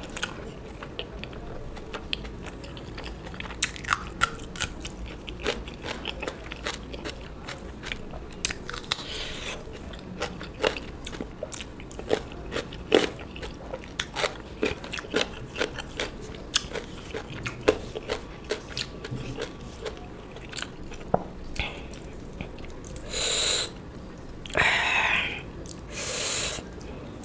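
A person eating close to the microphone: steady chewing with many sharp, irregular crunches of crisp food. Near the end come a few longer noisy bursts.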